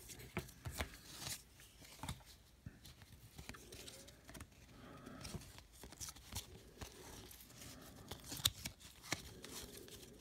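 Stack of baseball trading cards being thumbed through one at a time: faint scraping of card against card, with irregular soft clicks as each card slides over.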